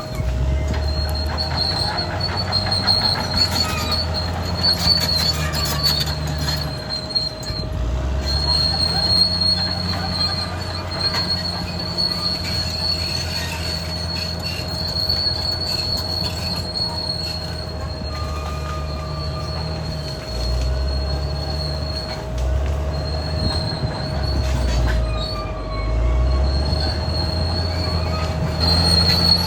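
Caterpillar D6R XL crawler bulldozer at work. The diesel engine's note rises and falls several times with changing load, over a steady high-pitched squeal from the steel tracks.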